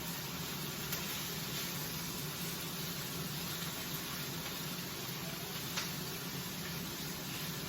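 Minced beef sautéing with garlic and onion in a hot non-stick pan: a steady sizzle, with a couple of faint ticks.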